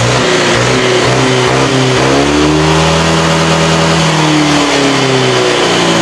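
Honda fuel-injected (PGM-FI) scooter engine revved with the rear wheel spinning free. It rises over a couple of seconds, holds high, then drops back near the end, running through an exhaust whose clogged catalytic converter has been gutted.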